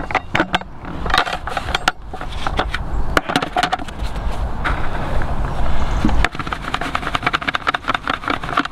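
Pinkie maggots dusted with maggot cleaner being handled in a plastic bait box and then sieved in a bait riddle, making crackling and scraping. From about six seconds in comes a dense, rapid crackle as the riddle is shaken and the loose sawdust and powder rattle through the mesh.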